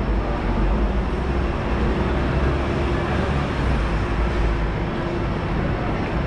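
Steady low vehicle rumble with a constant hum running through it.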